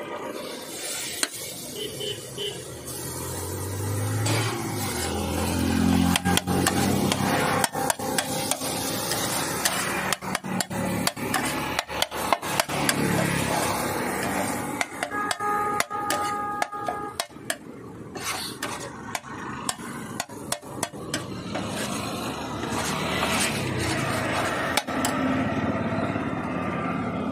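Metal spatula scraping and chopping chaat on a large flat iron tawa griddle: rapid clanks and scrapes of steel on steel, busiest through the middle and again near the end.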